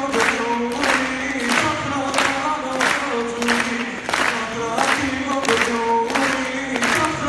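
A young man singing held notes into a microphone through a PA, over accompaniment with a steady beat about twice a second.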